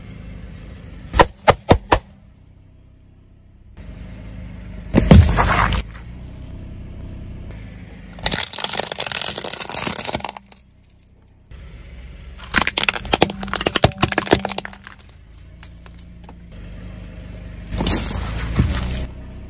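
Car tyre rolling over and crushing a series of objects: three sharp cracks about a second in, then bursts of crunching and crackling every few seconds. A low steady rumble from the car runs between the bursts.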